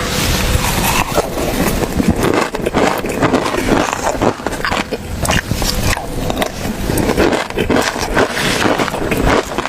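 Busy, irregular scraping and clattering, many quick knocks and scrapes in a row with no steady rhythm.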